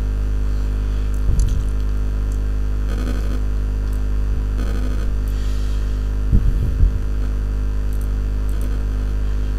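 Steady low electrical mains hum on the recording, with a short low noise about six and a half seconds in.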